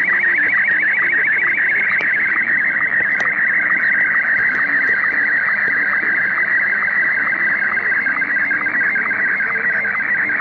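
Slow-scan television (SSTV) picture signal on the 20-metre band, received by a uSDR transceiver: a steady, loud warbling tone pulsing in a fast, even rhythm, one pulse per image line, as a picture is sent.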